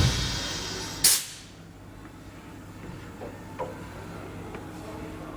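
Compressed air hissing out of the woodworking machine: a hiss dies away at the start, and a short, sharp blast follows about a second in. Faint clicks come after.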